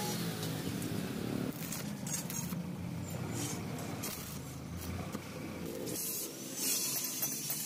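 An engine running, its pitch drifting up and down.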